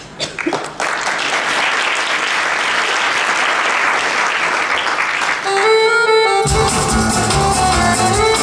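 Audience applauding for several seconds. Music starts about five and a half seconds in, a melody first with bass and beat joining a second later.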